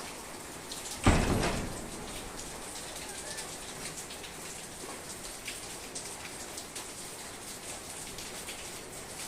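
Steady rain falling, with many small drops ticking on a surface. About a second in, a single loud thump dies away over half a second.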